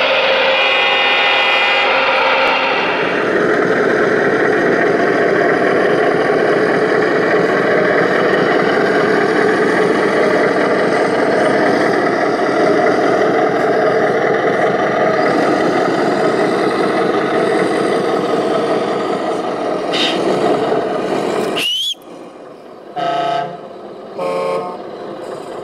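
Radio-controlled model construction machines running with a steady rushing, mechanical noise. About 22 s in, the level drops suddenly, and two short horn toots follow about a second and a half apart, typical of an RC truck's horn.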